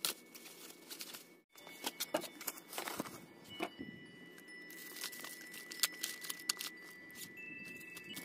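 Close handling of small toiletry items and a mesh packing cube: fabric and mesh rustling, with irregular light clicks and taps of plastic bottles being picked up and set down. It breaks off for a moment about a second and a half in.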